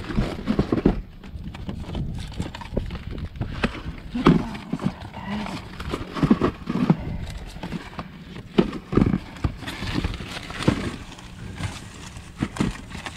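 Rummaging in a dumpster: boxed snack packages are picked up and shifted among the trash bags, making an irregular series of knocks, thumps and clatter.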